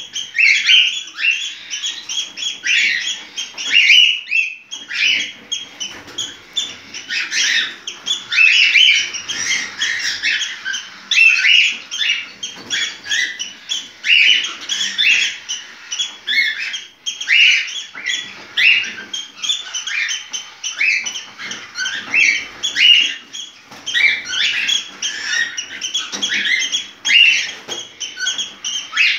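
Cockatiel in breeding condition calling, an unbroken run of short, rapid chirps and whistles.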